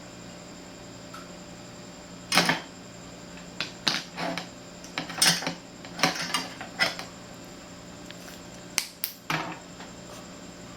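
Clicks and short rattles of small parts and tools being handled while speaker wires are soldered and connected, about ten of them in irregular clusters, over a faint steady electrical hum.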